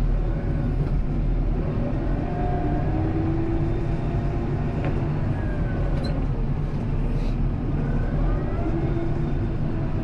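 Kubota M7060 tractor's four-cylinder diesel engine running steadily under load while it drives and pushes snow, heard from inside the cab, with faint whines that rise and fall a few times.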